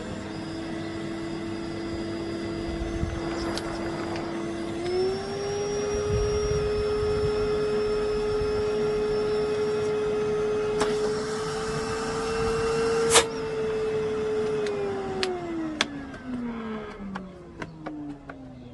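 Henry vacuum cleaner's motor running with a steady whine that steps up in pitch about five seconds in. A sharp click comes shortly before it is switched off, and the motor then winds down with a falling whine.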